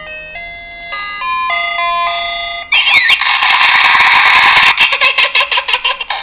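A toy sound-effect microphone's small built-in speaker plays a simple beeping electronic tune, its notes stepping up and down. About three seconds in it switches abruptly to a much louder, harsh, crackling sound effect full of rapid clicks.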